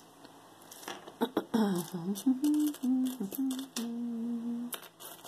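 A woman humming a short tune: several steady notes, the last held for about a second. A few sharp clicks from earrings being handled come before it.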